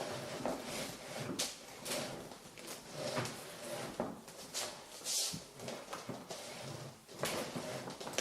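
Irregular clicks, knocks and brief rustles of hands handling parts and tools, with a few sharper knocks scattered through.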